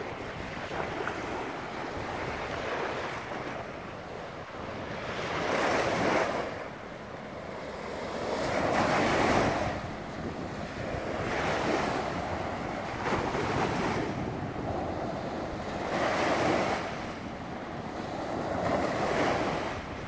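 Small wind-driven waves breaking and washing up a sandy river beach, a louder foamy hiss surging in every few seconds. Wind buffets the microphone.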